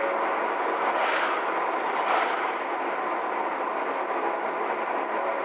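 Steady road and tyre noise of a moving car, heard from inside the cabin. Oncoming cars swish past twice, about one and two seconds in.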